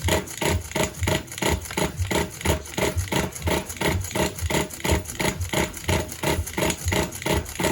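A four-wheel-drive vehicle's 3.0 engine cranking on the starter motor in an even rhythm of about five beats a second without catching: a cold engine that won't start.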